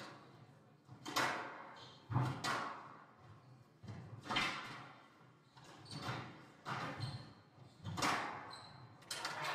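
Squash rally: the ball cracks off rackets and the court walls in about seven sharp, echoing hits, roughly a second apart. Near the end, applause breaks out.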